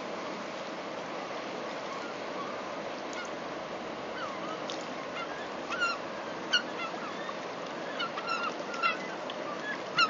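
A flock of seagulls calling, short squawking cries that start about three seconds in and come thicker and louder in the second half, over the steady rush of a flowing river.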